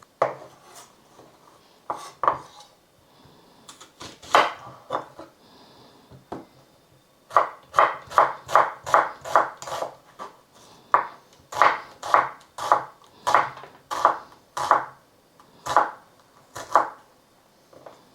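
Kitchen knife chopping vegetables on a cutting board. A few separate cuts come first, then a steady run of about two chops a second that stops shortly before the end.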